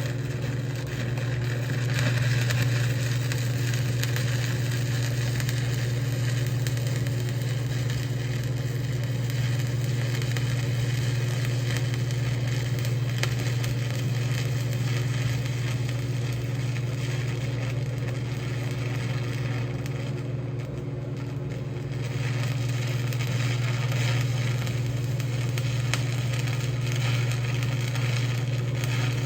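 Stick welding arc crackling and sizzling steadily as a 3/32" 7018 electrode burns onto 1/4" steel plate, fed by a square-wave TIG welding machine with foot-pedal amperage control. Under it runs a steady low hum. The crackle weakens for a couple of seconds about twenty seconds in, then picks back up.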